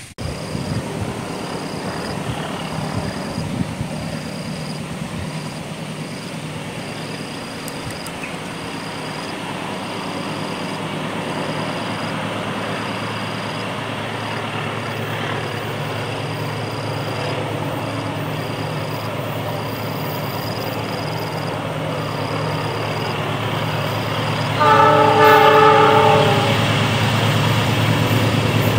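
A KAI CC206 diesel-electric locomotive approaching, its engine drone growing gradually louder. About 25 seconds in, it gives one multi-note air horn blast lasting about two seconds.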